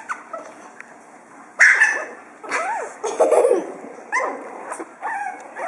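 Pug puppies yipping and barking in play. A sharp yip comes about a second and a half in, followed by a run of short barks that rise and fall in pitch, and a few more yips near the end.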